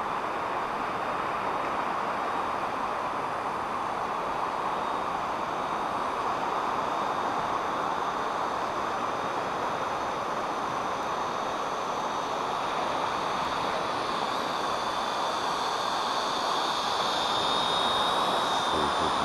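Steady wind rush on the microphone with the thin, high whine of a Syma X8C quadcopter's brushed motors in flight above it. The whine grows a little stronger near the end.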